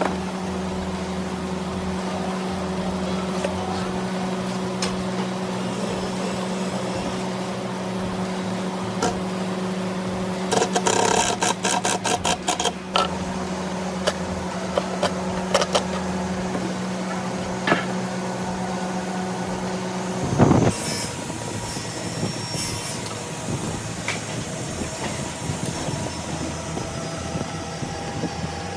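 An electric woodworking machine's motor hums steadily, with a burst of rapid clicking a little before halfway. About two-thirds of the way in the hum stops with a sharp knock, and a different steady running sound follows, its high whine slowly falling in pitch.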